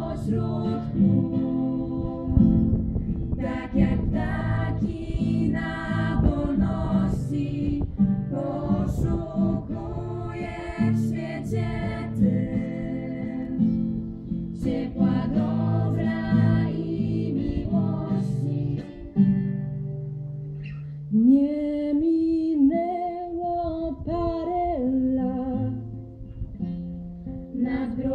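A group of young women singing a song together to a strummed acoustic guitar. About three-quarters of the way through the strumming thins out and the voices carry on almost alone.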